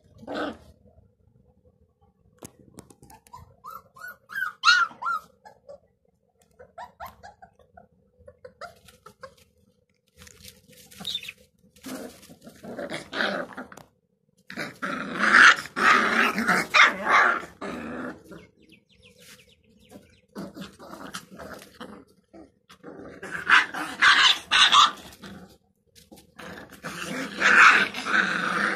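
Gultair puppies growling at each other as they play-fight, in several long bouts, with a short high-pitched yelp about five seconds in.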